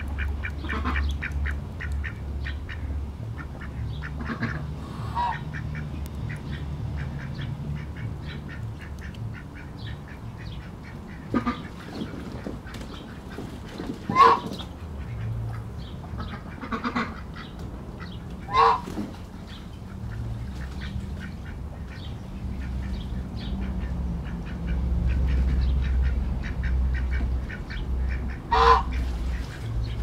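Ducks quacking on and off, with several louder goose honks standing out, over a steady low drone of city noise.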